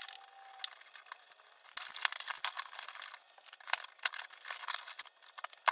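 Irregular clicks, taps and light rattles of small hardware being handled while a wall switch is installed. Sparse at first, busier from about two seconds in.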